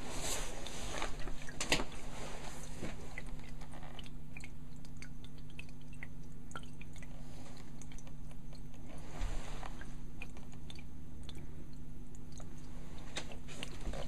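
Aquarium running: a steady low hum under small irregular clicks and crackles of water, busiest in the first few seconds.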